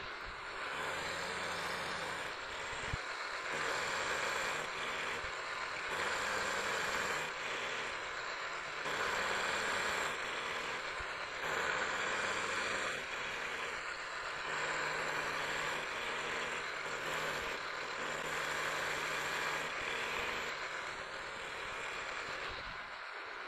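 Vertical milling machine's end mill cutting an aluminium bar: a steady motor hum with the cutting noise swelling and easing every few seconds as the cut goes on. This is the last flat of an octagon being milled.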